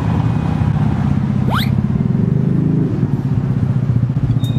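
Motorcycle and car engines running in street traffic, a steady low engine drone. A quick whistle-like sweep rises steeply in pitch about one and a half seconds in.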